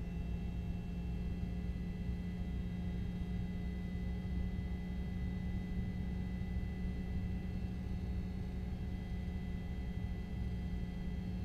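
A steady electrical hum with a low rumble under it and several faint, high, unchanging tones, holding at one level throughout.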